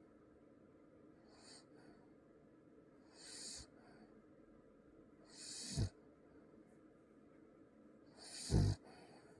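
A sleeping pet snoring: slow breaths every two to three seconds, each a hissing intake that grows louder, the last two ending in a short deep snort.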